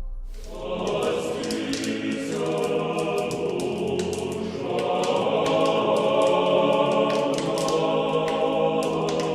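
Choir singing, starting about half a second in as a held ambient chord breaks off, and swelling louder around five seconds in.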